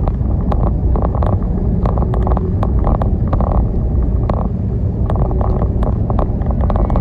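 Car driving, heard from inside the cabin: a steady low road and engine rumble, with frequent sharp clicks and rattles over it.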